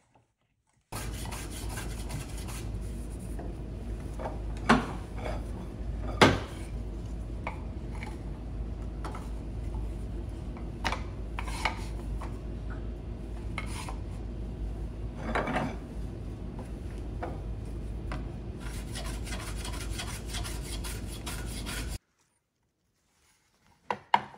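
Hand plane shaving a thin wooden frame strip: repeated scraping strokes of the blade on the wood, with a few sharp knocks and a steady low hum underneath. The strokes come thicker for the last few seconds, then cut off suddenly.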